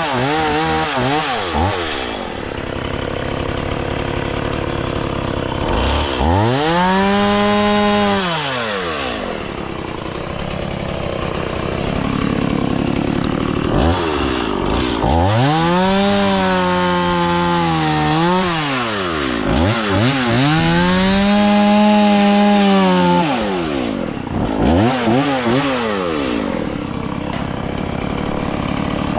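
Chainsaw revved up about four times, each time holding a high, steady pitch for a few seconds while cutting wood, then dropping back to a low idle between cuts.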